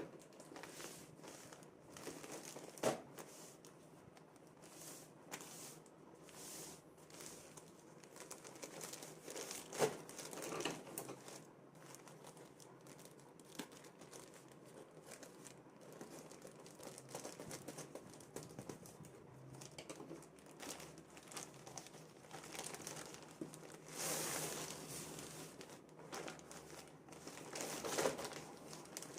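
Packaging of a pair of cargo pants being crinkled, rustled and torn open by hand, in irregular bursts with a few louder crackles and snaps.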